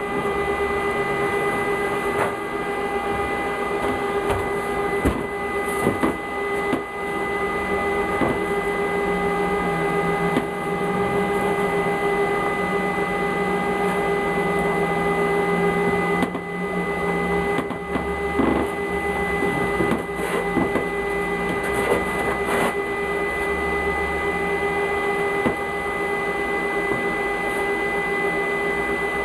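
Electric welding of a steel rod stand onto a small steel flange: a steady buzzing arc with a constant hum and scattered crackles and pops.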